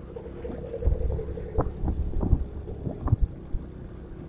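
Hino micro bus diesel engine through an aftermarket 'wolf' exhaust, running with a steady droning note over a low rumble and irregular sharp cracks and thumps.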